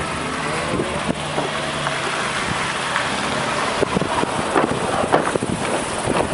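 Car rolling slowly with its window open: engine running and wind on the microphone. From about four seconds in, the tyres start knocking over the wooden planks of a narrow bridge, with irregular clunks that come more often near the end.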